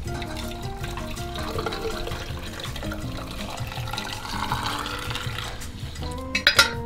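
Boiling water poured from a pot into a glass jar packed with tomatoes, splashing as it fills, under background music. A few sharp clinks near the end.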